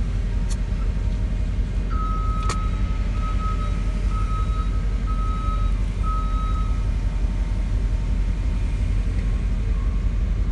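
Steady low rumble of engines running, with a reversing alarm beeping unevenly from about two seconds in until about seven seconds in. Two short clicks sound near the start.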